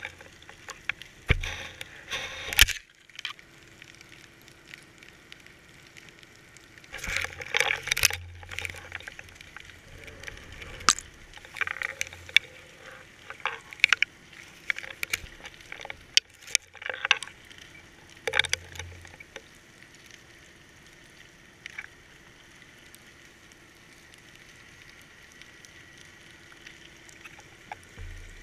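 GoPro sealed in its waterproof housing on a fishing rig underwater, picking up irregular knocks and clicks with short bursts of rushing water as the rig moves. It grows much quieter for the last third.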